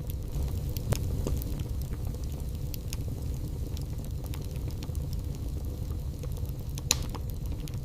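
Wood fire burning in a fireplace: a steady low rumble of the flames with scattered sharp crackles and pops, the loudest pop near the end and another about a second in.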